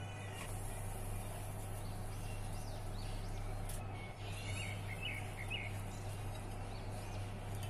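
Birds chirping in short, scattered calls, most of them a little past the middle, over a steady low hum.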